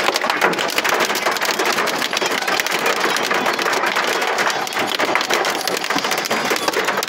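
Hail and rain pelting the car's roof and windows, heard from inside the car: a dense, steady clatter of small hits.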